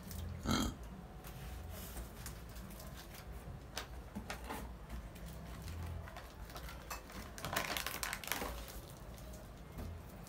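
Small milk cartons and packets being handled and set down in a cardboard box: light scattered taps, knocks and rustles. The busiest stretch of clicking and rustling comes about three quarters of the way through.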